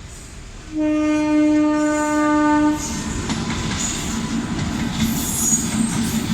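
Train horn sounding one steady blast of about two seconds, starting about a second in, followed by the rumble and wheel noise of a train running past.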